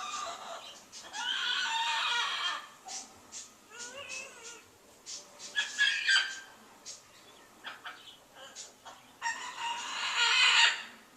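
A large pet bird crying out again and again, with harsh calls about a second or more long. Shorter calls come between them, and the longest and loudest call is near the end.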